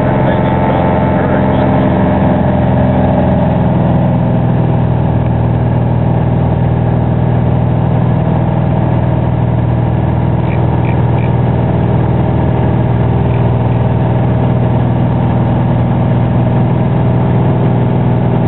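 Cessna 180's six-cylinder Continental O-470 piston engine and propeller running loud and steady, heard from inside the cabin during a takeoff on skis from snow.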